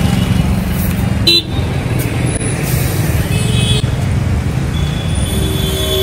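Vehicle engine running steadily in road traffic, with a short horn toot about a second and a half in and a steady horn-like tone starting near the end.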